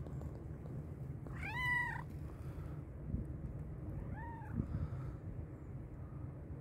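Hungry black-and-white domestic cat meowing twice: a longer meow about a second and a half in, then a shorter, fainter one about four seconds in.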